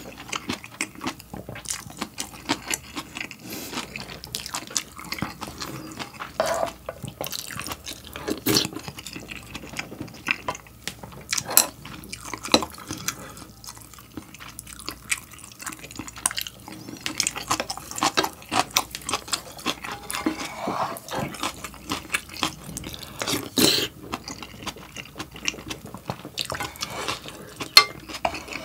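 Eating instant ramen up close: wet slurping of noodles and broth, with a steady run of sharp clicks from the spoon and chopsticks against the pot and from the mouth.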